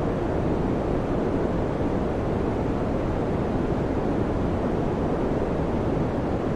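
Electric fan running steadily: an even, low rushing noise with no hum, ticking or change.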